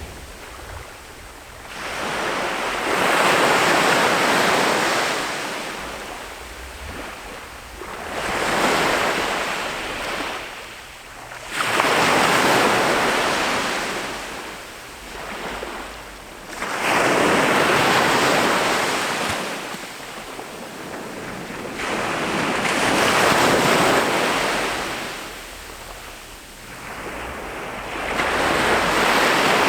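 Ocean surf breaking on a beach in repeated surges, about six in half a minute. Each surge swells into a loud rush and then drains away to a softer wash before the next.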